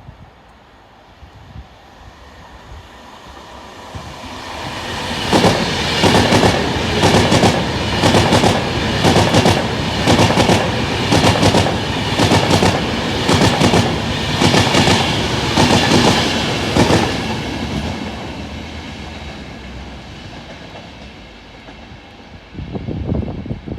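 A train passing at the station, its wheels clattering over the rail joints in a regular clickety-clack that builds up, stays loud through the middle and then fades away. A short burst of noise comes near the end.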